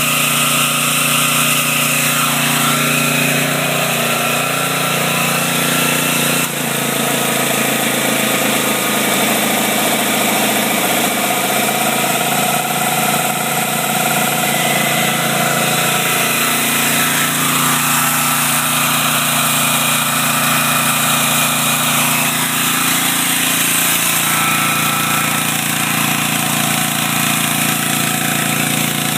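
Homemade generator's engine running steadily under the load of two electric heaters and an air conditioner. About six and a half seconds in there is a brief dip, after which its note shifts slightly.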